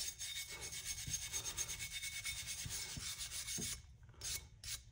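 Fast, even back-and-forth scratchy rubbing strokes against an old wooden hand plane, working its bottom flat and clean; the strokes stop about three-quarters of the way through, followed by a few faint clicks.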